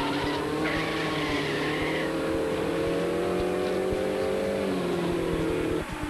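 Race-car engine sound laid over toy-car racing footage, a steady engine note creeping slowly up in pitch, with a high tire-squeal-like screech between about one and two seconds in. The sound breaks off abruptly just before the end.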